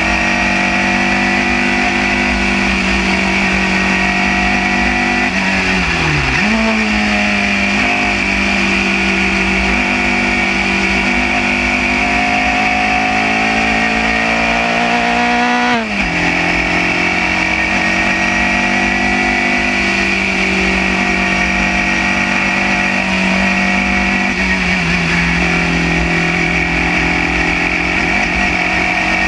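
Open-wheel single-seater race car's engine at racing speed, heard from the onboard camera. The engine note climbs steadily under acceleration and drops sharply at gear changes, about six seconds in, about sixteen seconds in and about twenty-four seconds in.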